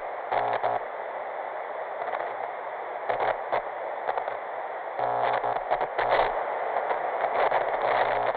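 TV-static glitch effect: a steady hiss of static broken by short bursts of buzzing crackle every second or two.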